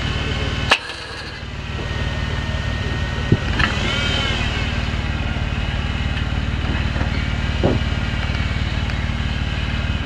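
Jeep Wrangler engine idling steadily, with a sharp click about a second in and a brief drop in the low hum just after it.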